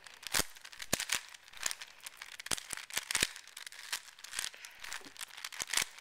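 Plastic 4x4 Rubik's-type cube having its outer layers turned through a solving algorithm: a quick, irregular run of sharp clicks and rattles as the layers snap round.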